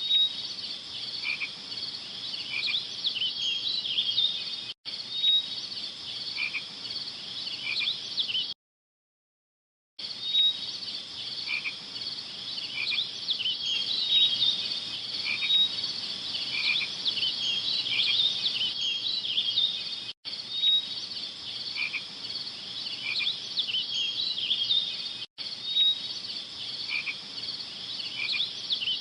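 A dense chorus of small animals calling with high-pitched chirps, dropping out completely for about a second and a half about a third of the way in and cutting out for an instant a few more times.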